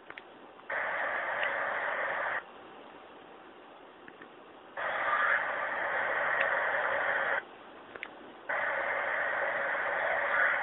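Static-like hiss that switches on and off abruptly three times, each burst lasting about two seconds, over a faint background hiss with a few small clicks between the bursts.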